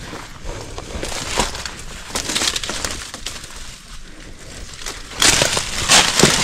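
Footsteps crunching through forest undergrowth, with a louder stretch of crackling about five seconds in.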